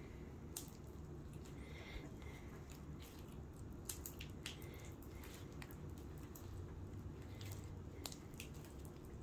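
Glitter-and-styrofoam-ball-packed slime being mixed by hand: soft squishing with scattered small clicks and pops, over a low steady hum.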